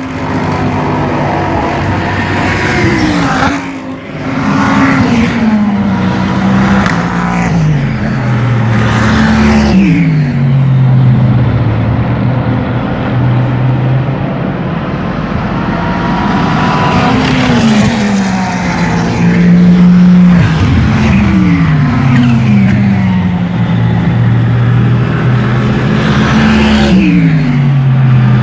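Racing car engines running at high revs, with the engine note dropping in a series of steps several times over, like a car changing down through the gears, and rising again in between.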